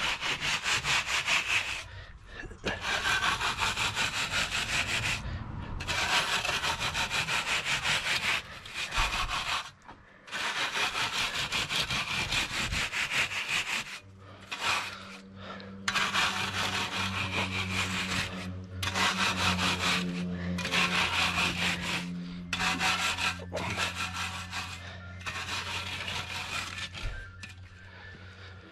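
Screed board being dragged over wet concrete in quick sawing strokes, striking off the excess. The strokes come in runs of a few seconds with short pauses between them, and a steady low hum joins from about halfway.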